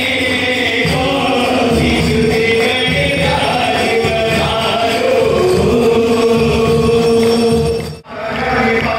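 Devotional aarti singing over a steady rhythmic beat, breaking off for a moment near the end.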